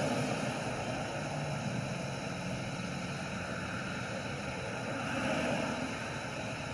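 Steady street traffic noise with a low engine hum, swelling briefly about five seconds in.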